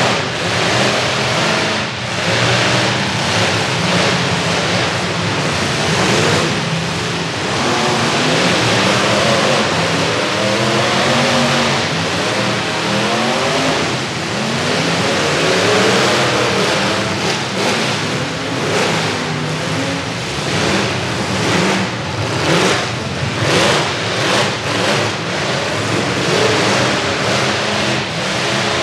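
Several demolition-derby pickup truck engines revving at once, their pitch rising and falling. From about halfway through, a run of sharp bangs as the trucks crash into one another.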